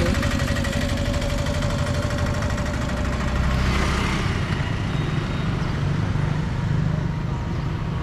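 Motorcycle engine idling close by, with a steady whine over it for the first few seconds. About four seconds in, a passing scooter's noise swells and fades.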